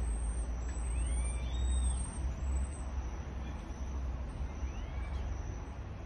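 A marmoset's thin, high whistling calls, a few short, slightly rising whistles in the first half, with short chirps about a second in and again near the end. A steady low rumble lies under them throughout.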